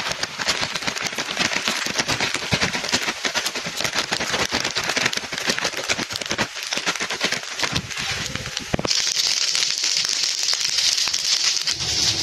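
Rice frying in an oiled pan, crackling and sizzling with many quick pops; about nine seconds in, the sound changes suddenly to a steadier, higher hiss.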